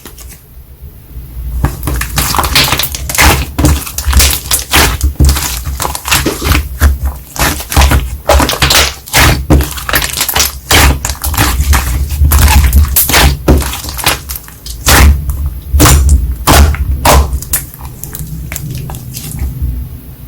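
Slime being squished and pressed by hand, giving a dense run of crackling, popping clicks over low thuds, with brief lulls near the start and end.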